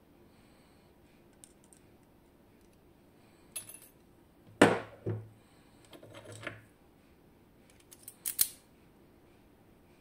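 Small metal lock parts and tools being handled: a single sharp metallic clack about halfway through, a brief scraping after it, and a few small clicks near the end.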